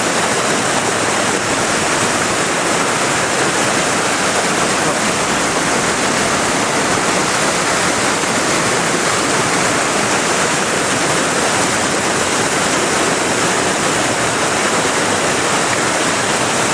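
Steady rushing of fast-flowing whitewater, a loud, even roar with no let-up.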